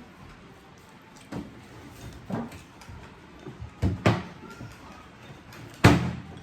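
A handful of sharp knocks and clatters of bowls and utensils handled during a meal, the loudest a hard knock near the end.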